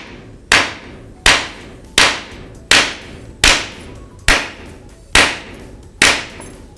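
Hammer striking two heated, softened aluminium pieces stacked on a metal cylinder used as an anvil, in an attempt to hammer-weld them together. There are eight sharp, loud strikes, roughly one every three-quarters of a second, each with a short metallic ring.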